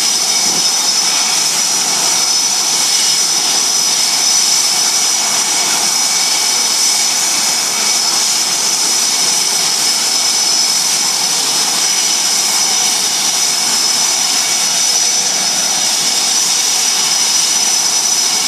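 Blue Angels F/A-18 Hornet jet engines running steadily: an even rush with a sharp, high-pitched whine held at one pitch.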